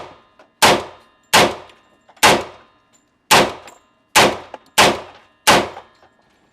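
CMMG Banshee short-barrelled AR firing single shots at a steady slow pace, about one every three-quarters of a second to a second. There are seven or eight sharp cracks, each with a brief ringing tail. The last comes about a second before the end.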